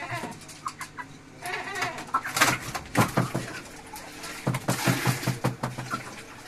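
Chickens clucking in a run of short, sharp calls, busiest about halfway through.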